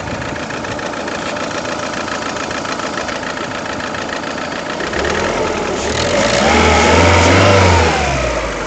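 Lada Priora 21126 1.6-litre sixteen-valve four-cylinder engine idling warm with a fast, even knock, which the owner suspects comes from the hydraulic lifters or a piston. About five seconds in it is revved briefly, rising and then falling back toward idle.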